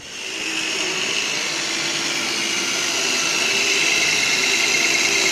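Rotary hammer drilling a hole into a concrete floor for an anchor bolt. A steady drilling noise that comes in at the start and builds a little over the first second.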